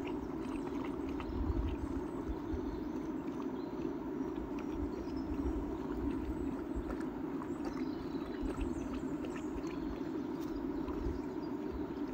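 Dogs eating from a metal bowl: irregular chewing, crunching and clicking of mouths and teeth. Underneath runs a steady low rush.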